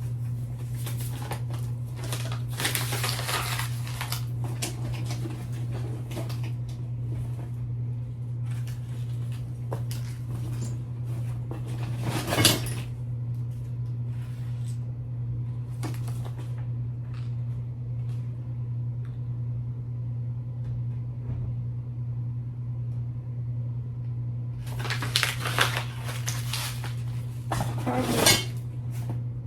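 Items being rummaged through and handled while a tool bag is emptied: rustling with scattered clicks, a sharp clack about twelve seconds in and another burst of rustling with a clack near the end, over a steady low hum.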